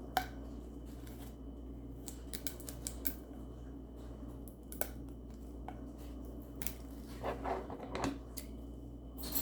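Scattered small clicks, snips and crackles of plastic fidget toys and their packaging being handled, coming in short clusters, over a steady low hum.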